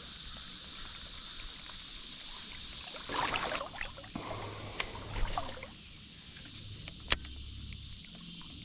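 Water splashing and sloshing about three seconds in, over a steady high hiss, followed by a few sharp clicks.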